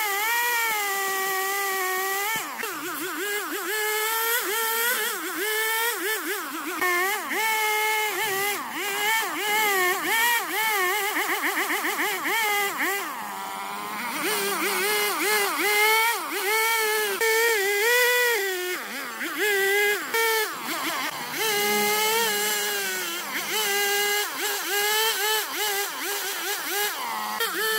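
Two-stroke chainsaw running under load, its engine pitch rising and dipping over and over as it cuts into wood.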